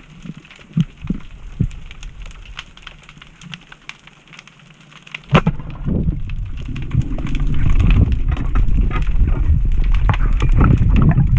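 Underwater sound: scattered crackling clicks, then a sharp crack about five seconds in, followed by loud, steady low water noise.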